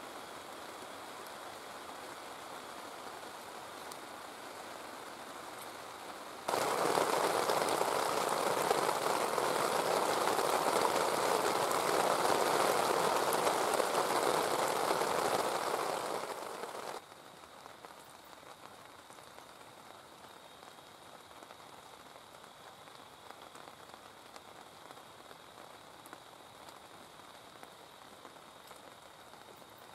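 Steady rain falling. About six seconds in it turns abruptly much louder and stays so for about ten seconds, then drops back just as suddenly to a softer patter.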